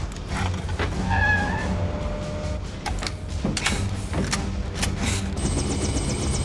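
Van engine and road noise rumbling steadily, with knocks and clatters of people and equipment moving in the back of the van. A short pitched tone sounds a little over a second in. A fast, high ticking starts near the end, with faint film music underneath.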